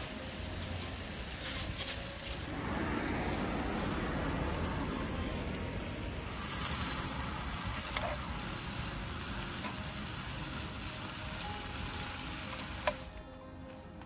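Meat sizzling as it fries on a parchment-lined grill pan over a portable gas stove. A sharp click near the end, after which the sizzle drops away.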